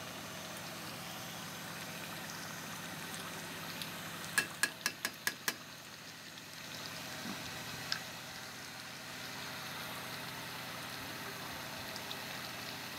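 Beef and potato curry simmering in an open karahi over a gas burner: a steady hiss and bubbling. About four seconds in, a quick run of six sharp clicks.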